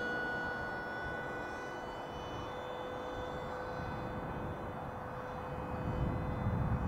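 RC model airplane's engine running with a steady high whine as it flies, getting louder near the end.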